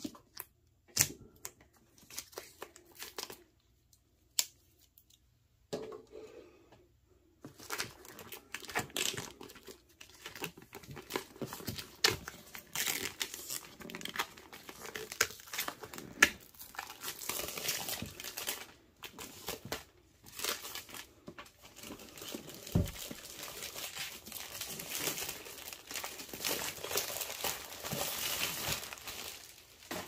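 A pocket knife slitting the clear plastic shrink wrap on a product box gives a few scattered scratches and clicks. From about seven seconds in, the shrink wrap is torn and peeled off the box with continuous crinkling and crackling.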